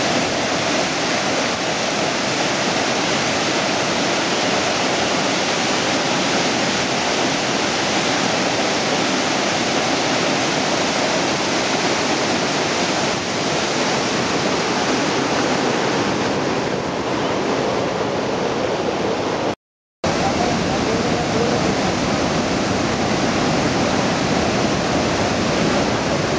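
Floodwater pouring through a reservoir spillway's open sluice gates: a loud, steady rush of falling, churning water. It cuts out for a split second about twenty seconds in, then resumes just as steady.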